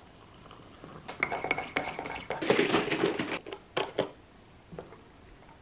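A teaspoon stirring coffee in a ceramic mug, clinking again and again against the sides with a light ringing tone. The clinking starts about a second in and stops after about three seconds.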